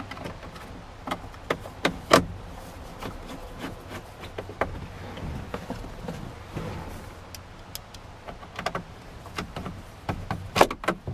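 Irregular clicks and knocks of bolts and hand tools being handled while four bolts are refitted in a Jeep Wrangler's dashboard, over a low steady hum.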